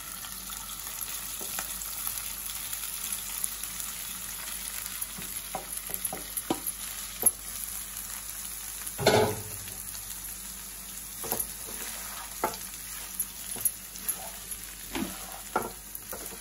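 Cooked rice frying with a steady sizzle in a hot nonstick pan as a wooden spatula stirs it, with scattered light knocks of the spatula against the pan. One louder thump comes about nine seconds in.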